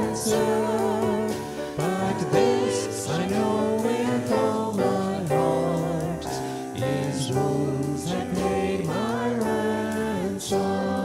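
Church congregation singing a slow hymn verse together, in long held notes with vibrato.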